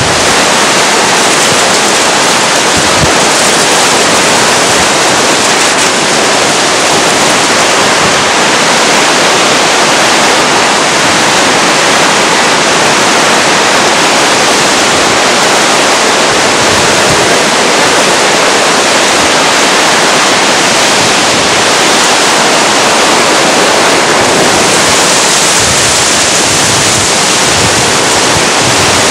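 Hurricane wind and driving rain: a loud, steady rushing noise that grows brighter in its hiss for a couple of seconds near the end.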